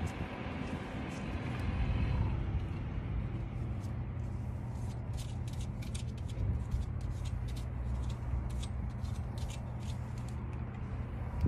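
Light metallic clicks and clinks as new brake pads are fitted into the caliper bracket and its clips, starting about four seconds in, over a steady low rumble.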